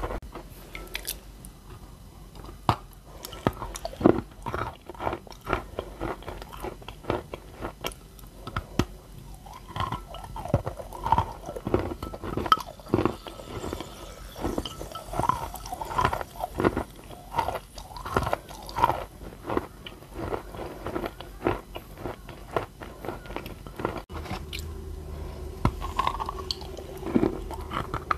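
Edible clay being chewed close to the microphone: a dense, irregular run of wet crunches and mouth clicks as a mouthful is worked.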